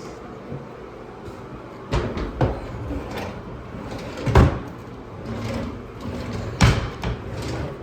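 Cabinet doors and drawers being opened and shut, giving several knocks and bumps; the loudest comes about four and a half seconds in and another near the end.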